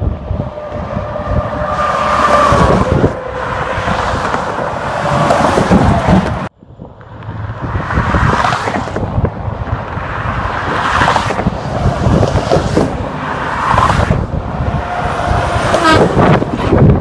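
Freeway traffic passing close by, heavy trucks and cars rushing past one after another, with wind buffeting the microphone. In the first few seconds a faint steady tone slides slightly lower in pitch as a vehicle goes by. About six and a half seconds in, the sound cuts out for an instant.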